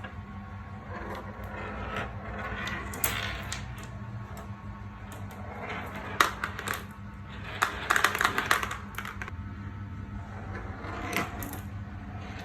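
Marbles rolling and clicking along a toy marble run: scattered sharp clicks, then a burst of rapid clattering about eight seconds in, over a low steady hum.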